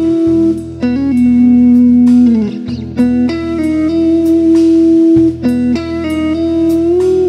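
Guitar playing a blues tune: plucked, sustained notes, some gliding in pitch, over a steady low bass.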